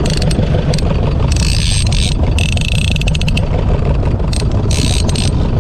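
Fishing boat's diesel engine running steadily under short, repeated bursts of rapid clicking from the fishing reel while a hooked king mackerel pulls and takes line.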